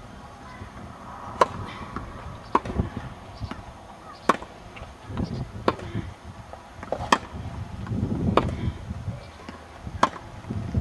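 Tennis balls struck back and forth by racquets in a rally: about six sharp hits, one every second and a half or so, with a longer pause before the last.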